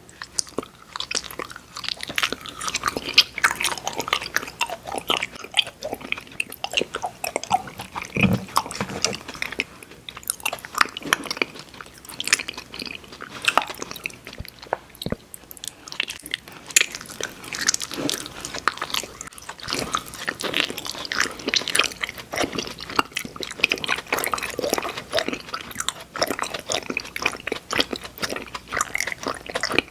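Close-miked ASMR eating of candy sweets: steady biting and chewing with many sharp, crisp crunches.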